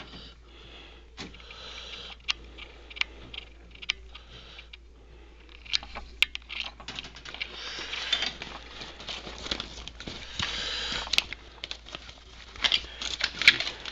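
Handling noises: scattered light clicks and knocks throughout, with stretches of rustling about eight and ten seconds in.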